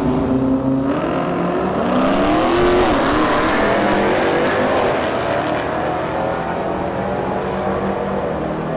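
Two drag-racing cars, a modern Dodge Challenger and a classic muscle car, launching at full throttle and accelerating down the strip. The engines climb in pitch from about a second in, then grow fainter as the cars pull away.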